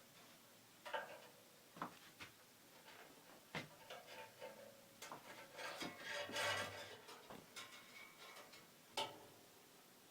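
Light metal clicks and rattling from a bandsaw blade being handled and slid through the table slot while it is fitted. There are scattered sharp clicks, with a longer stretch of jangling about two-thirds of the way through.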